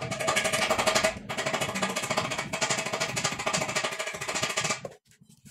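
Rapid, rattling mechanical hammering, like a power tool run on the trigger, with a short break about a second in and a sudden stop near the end.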